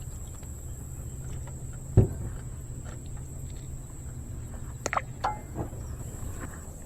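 Steady insect drone and a low hum, broken by one dull thump about two seconds in and a few sharp clicks near the end.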